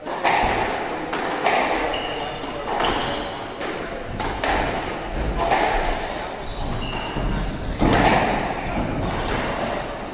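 A squash rally: sharp hits of racket on ball and ball off the court walls, a dozen or so at an uneven pace, each ringing briefly in the enclosed court. Short high squeaks of shoes on the wooden floor come in between.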